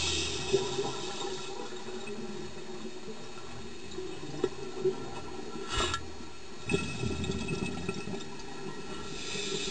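Scuba divers' exhaled regulator bubbles heard underwater, a bubbling rush at the start and again near the end, with a few sharp knocks in between.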